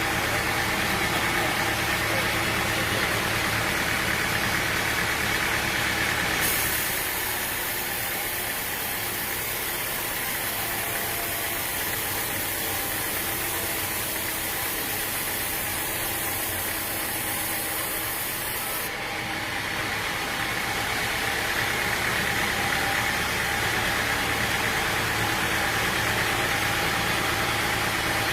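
Engine-driven machinery running steadily. About six seconds in it gives way to a thinner, hissier noise, and the fuller engine sound returns about two-thirds of the way through.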